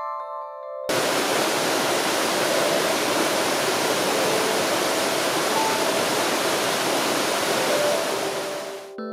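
Waterfall's falling water, a loud, steady, even rush. It cuts in suddenly about a second in, after a few glockenspiel-like music notes, and stops abruptly near the end.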